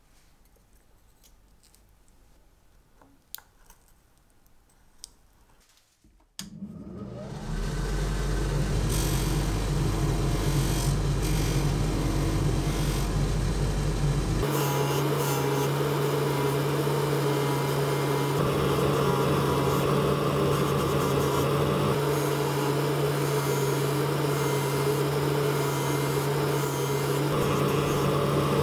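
A few light clicks of metal tweezers on a watch case, then about six seconds in a bench polishing machine starts and runs steadily with a loud hum, its abrasive wheel grinding a watch part held against it. The hum drops in pitch and changes about halfway through.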